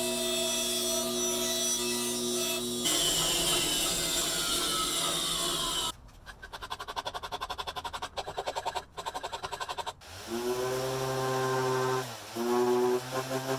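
A small electric power tool motor running with a steady hum, then spinning down with a falling whine. A fast rhythmic chatter follows, and the motor hums up again near the end.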